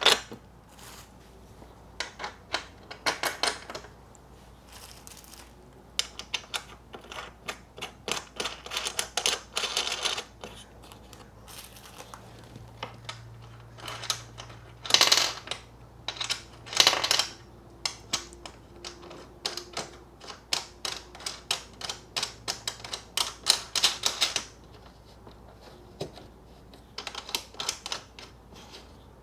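Rapid clicking and rattling of small hard parts: plastic window clips and screws being handled and fitted onto the window frame. The clicks come in bursts with short pauses between them, the loudest about halfway through.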